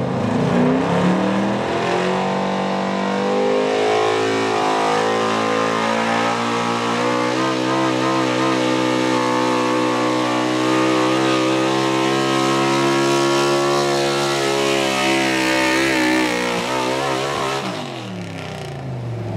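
Pulling pickup truck's engine revving hard under load as it drags a weight sled, its pitch climbing over the first couple of seconds and then holding high. Near the end the revs waver and fall away as a rear wheel comes off the truck.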